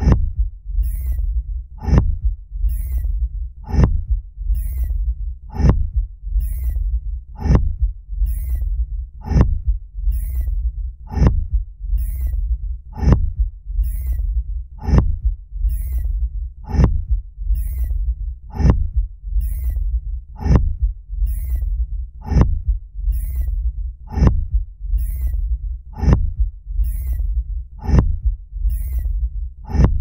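Sound effect of a Fremen thumper, the stake-driven device that pounds the sand to call a sandworm: a steady rhythm of heavy thumps, about one a second, each with a faint high tick, over a continuous deep rumble.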